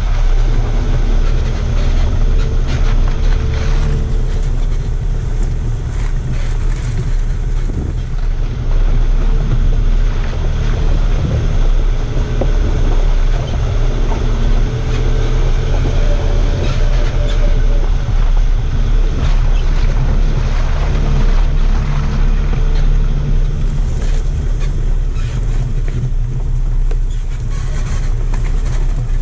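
A 4x4's engine running with a steady low drone as the vehicle drives slowly over a rutted, muddy track, with scattered knocks and rattles from the wheels and body over the rough ground.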